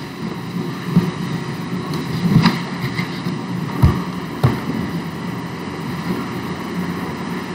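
Steady rumbling noise on the microphone, with a few short low thumps in the first five seconds.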